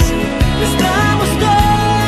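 Music: a ballad with held melody notes that waver slightly, over a steady low accompaniment.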